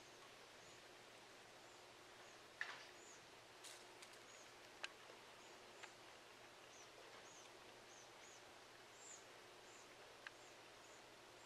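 Quiet outdoor ambience: faint, short, high chirps repeating about every half second, and a few scattered sharp clicks, the loudest about two and a half seconds in.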